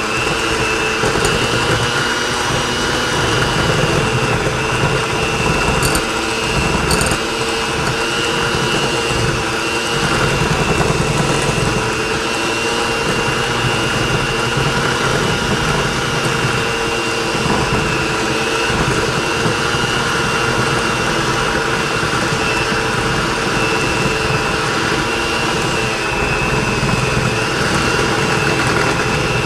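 Electric hand mixer running steadily at speed, its beaters creaming butter and granulated sugar in a bowl, with a constant motor whine.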